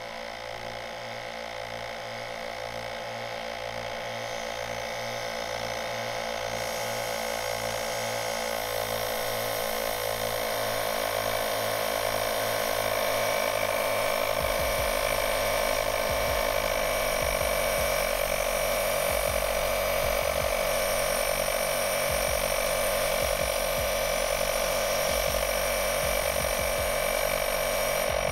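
Onboard air compressor in a vehicle's engine bay running steadily. It grows louder over the first half and then holds an even tone.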